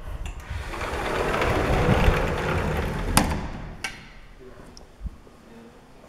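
A sliding door rolling along its track with a rumbling swell, ending in a sharp knock as it shuts and a second click just after.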